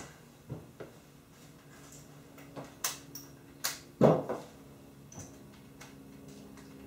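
Plastic door insert being handled and lined up against the frame: scattered clicks and light knocks, with one louder thump about four seconds in.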